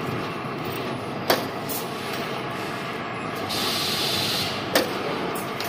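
2D CNC wire bending machine running steadily, with two sharp clicks about three and a half seconds apart and a short hiss a little before the second click.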